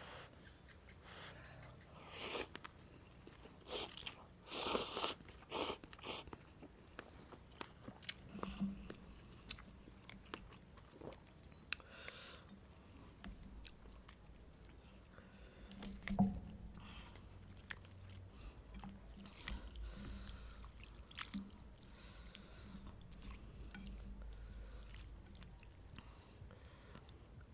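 A person chewing and eating close to the microphone: irregular mouth clicks, smacks and bites, loudest and busiest in the first several seconds.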